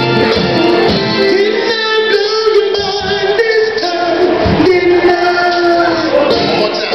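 Live soul music: a male vocal group singing held, gliding notes into microphones over a backing band with drums and electric guitar, amplified through the room's PA.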